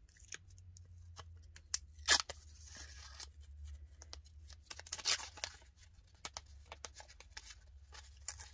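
Paper backing being peeled and pulled off a roll of washi sticker tape by hand: a run of small clicks and rustles, with a loud crackle about two seconds in and another noisy pull around five seconds.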